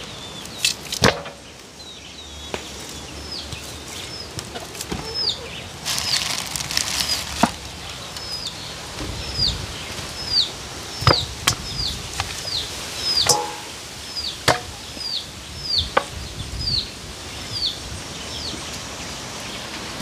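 Knife chopping raw chicken on a wooden cutting board: sharp knocks at uneven intervals. A small bird chirps over them throughout, with short, high chirps that fall in pitch, one or two a second.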